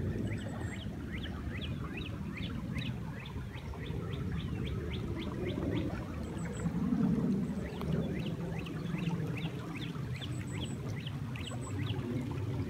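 River water rushing steadily, with a chorus of short high chirping calls repeating a few times a second.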